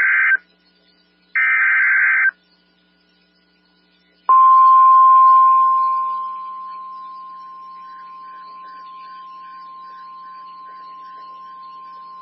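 EAS SAME header on NOAA Weather Radio: the end of one and then a whole roughly one-second burst of warbling digital data tones, encoding the Fire Warning alert. After a pause of about two seconds, the NOAA Weather Radio 1050 Hz warning alarm tone comes on loud and holds one steady pitch, dropping in level over the next few seconds. The tone signals that a warning message follows.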